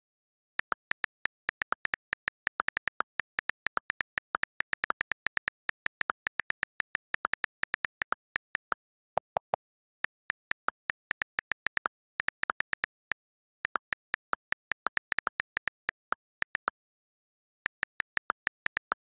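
iPhone on-screen keyboard click sounds as a message is typed: quick runs of sharp taps, several a second, broken by short pauses, with a couple of lower-pitched clicks about nine seconds in.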